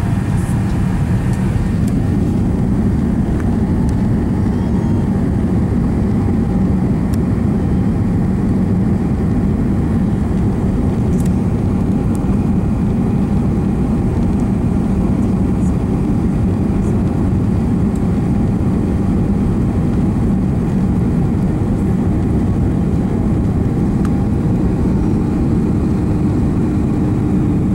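Steady engine and airflow noise inside a jet airliner's cabin on final approach, with a faint steady whine running through it. Near the end a second steady tone comes in as the plane reaches the runway.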